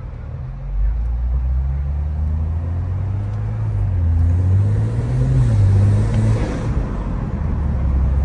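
BMW M340i's turbocharged 3.0-litre straight-six, fitted with an aftermarket cat-back exhaust, downpipe and stage 2 tune, pulling under throttle, heard from inside the cabin. The exhaust note is deep, gets louder about a second in, rises in pitch for several seconds, then falls back to a lower note near the end.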